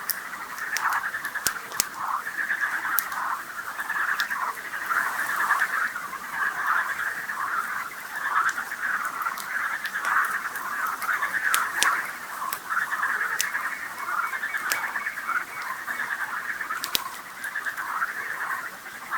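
Frogs calling in a dense, continuous chorus, with sharp pops and crackles from a wood campfire scattered through it.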